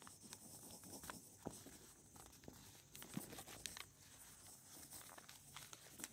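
Faint scratching and irregular light ticks of a black ink pen drawing short strokes on paper, over a steady hiss.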